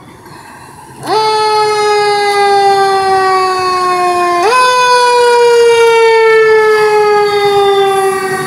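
Seagrave ladder fire truck's siren switching on about a second in. Its pitch jumps sharply up and then falls slowly, and it jumps up again a few seconds later and slides down again.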